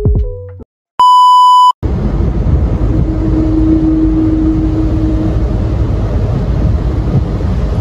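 A single loud electronic beep lasting under a second, then steady low road noise heard from inside a moving car on a wet road.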